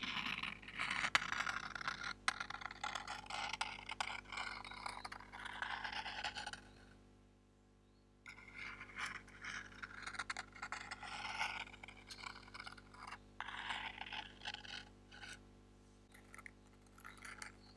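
Fingers scratching a small cardboard box, with a few sharp clicks among the scratches. It comes in two long spells with a pause of about a second and a half in the middle, and fades to faint scratches near the end.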